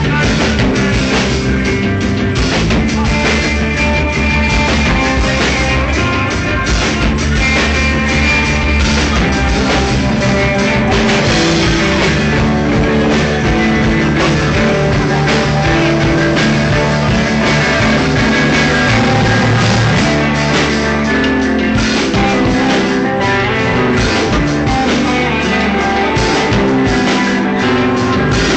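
Live rock band playing at a steady loud level, with electric guitars over a drum kit.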